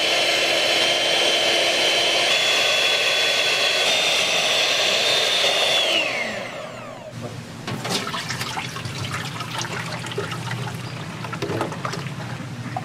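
Handheld electric mixer beating a large pot of raw eggs; its motor whine steps up in pitch twice, then winds down and stops about six seconds in. After that come quieter wet scraping and clicking as beaten egg is worked through a mesh strainer with a spatula.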